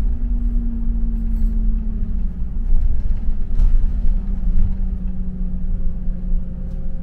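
London bus heard from inside while moving: a steady low rumble of engine and road, with a humming drive tone that drops and then climbs a little in pitch.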